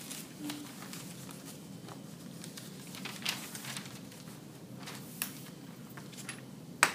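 Newspaper rustling and crinkling as a sheet is opened out and smoothed flat onto a plant-press stack, in several faint scattered rustles. A louder rustle comes right at the end.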